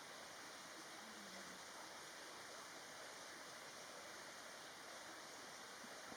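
Faint, steady hiss with no bird calls or other distinct sounds.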